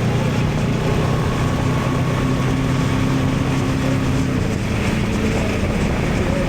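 Honda Transalp 750's parallel-twin engine running steadily at cruising speed, with wind rush over the microphone. The engine note shifts slightly about four seconds in.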